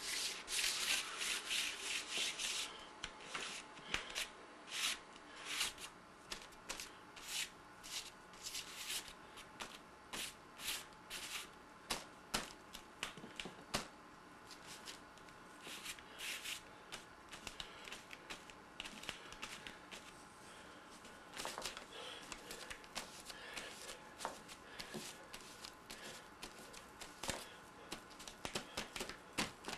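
Fingers and hands dabbing and rubbing paint across a canvas: a run of short, scratchy strokes, quick and close together for the first few seconds, then more spaced out and irregular.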